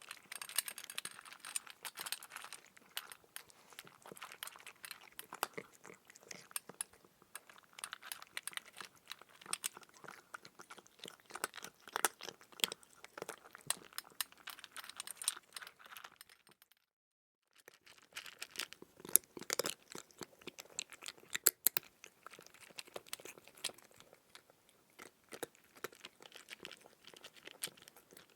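Close-up crunchy chewing: continuous irregular crackling and munching of crisp food, cutting out completely for about half a second a little past halfway before resuming.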